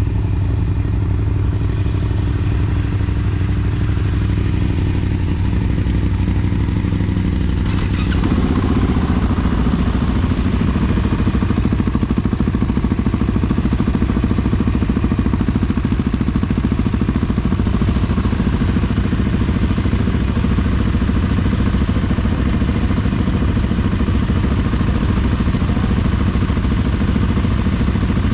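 Vehicle engine idling steadily, then pulling away about eight seconds in and running on under way with a rattling clatter.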